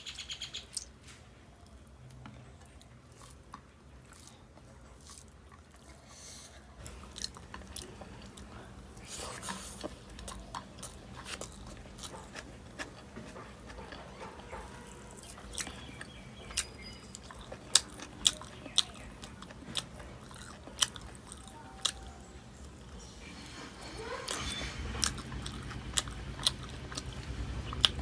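Close-up sounds of a person eating rice and curry by hand: chewing with many short, sharp, wet mouth clicks and smacks. The sounds get louder and busier near the end.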